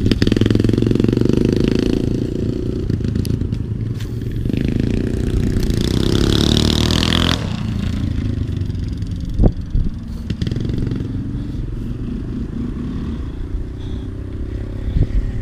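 Four-wheeler (ATV) engines running and revving as a group of them rides past, loudest about six to seven seconds in, with a sharp click about nine seconds in.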